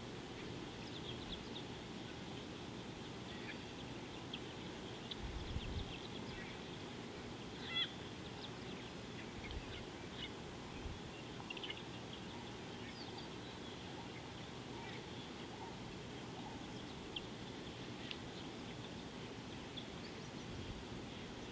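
Scattered short bird chirps and calls over a steady outdoor background hiss, with the loudest call about eight seconds in. A brief low rumble comes about five seconds in.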